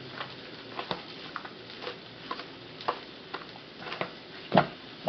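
Soft pats and slaps of pizza dough being stretched and turned by hand, with a louder thump near the end.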